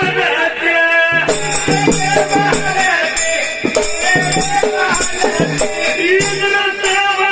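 Dhangari ovi folk music: a voice singing a melody over sustained instrumental tones and jingling hand percussion keeping a steady beat.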